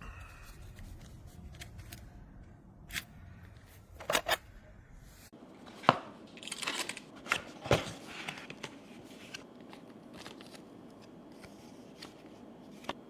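Handling noise from a metal camera clamp and articulated arm: a series of sharp clicks and knocks, with a short rustle in the middle.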